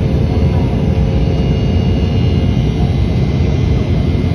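Airliner cabin noise at a window seat: the steady roar of the turbofan engines and rushing air, with faint steady tones over it.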